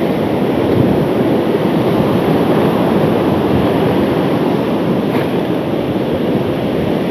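Sea surf breaking and washing onto a sandy beach, with wind buffeting the microphone in a steady loud rush.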